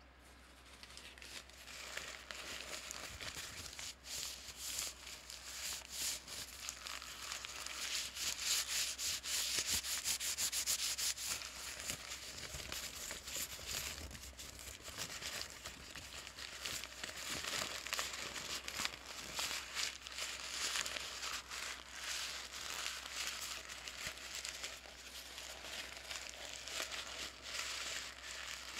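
Paper bag being crinkled: continuous dense crackling and rustling with many small snaps, loudest about a third of the way in.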